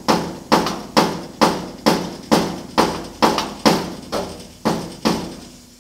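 A hammer tapping the steel sheet metal of a 1950 Chevy truck cab from underneath, a dozen evenly spaced sharp taps about two a second, each ringing briefly, working a kinked body line beside the antenna hole back out.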